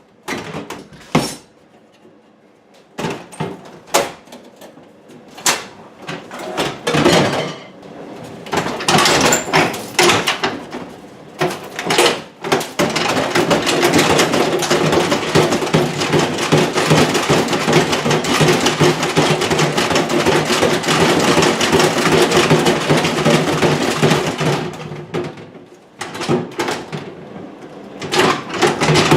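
Kitchen demolition work: scattered knocks and bangs, then about twelve seconds of continuous rough, noisy tool sound from near the middle, followed by more knocks.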